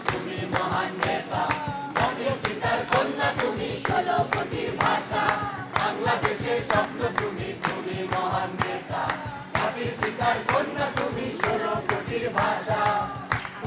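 A large mixed group of men and women singing a song together in chorus, accompanied by strummed acoustic guitars, with many hands clapping along in a steady rhythm.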